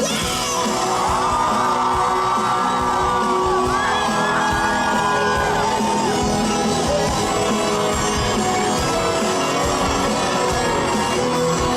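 Live band music playing through an instrumental stretch between sung lines, with the audience shouting and whooping over it in a large hall.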